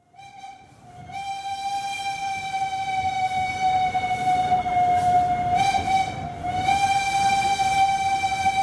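Locomotive air horn sounding one long, steady blast on a single pitch. It swells in over the first second and sags briefly in pitch about two-thirds of the way through, over a low train rumble.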